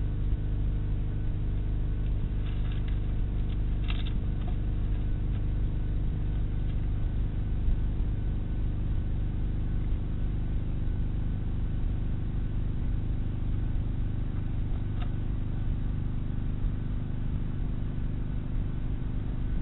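Steady low hum and rumble, with a few faint clicks about two to four seconds in and once more near the end.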